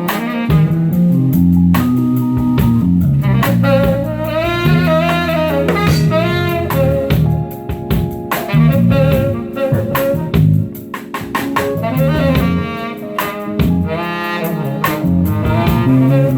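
Band playing jazz: a lead melody with bending notes over a bass line and drum kit hits, carrying on without a break.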